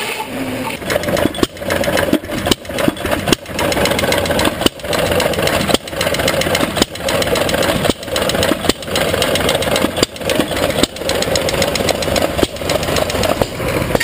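Hit-and-miss engine running a buzz saw rig: loud firing pulses at uneven spacing, mostly under a second apart, each one dying away as the engine coasts, over a steady hum.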